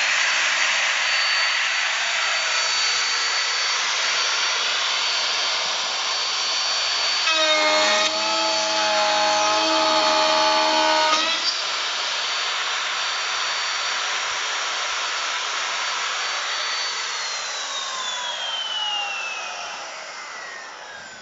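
DeWalt plunge router on a CNC gantry cutting MDF at a raised speed: a high steady whine over the hiss of the bit chewing through the board. In the middle a lower hum joins for about four seconds, and from about three-quarters of the way through the router's whine falls as it spins down.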